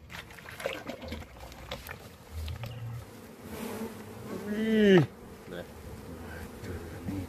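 Honeybees buzzing around the honey and comb, a low on-and-off hum. About five seconds in, one bee flies close past the microphone: its buzz grows loud and drops in pitch, then is gone.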